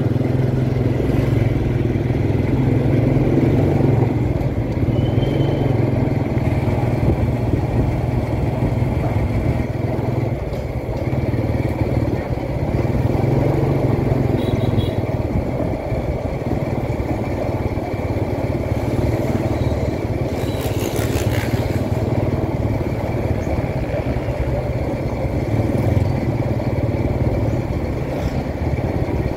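Steady engine drone of a vehicle moving through city street traffic, with passing traffic around it. A short high beep comes about five seconds in, and a brief hiss around twenty seconds in.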